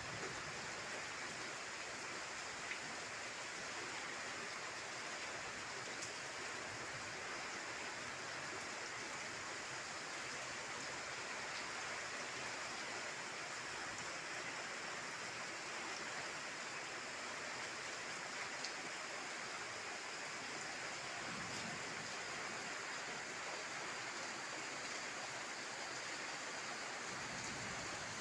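Heavy rain falling steadily, a dense, even hiss with a few single drops ticking out louder now and then.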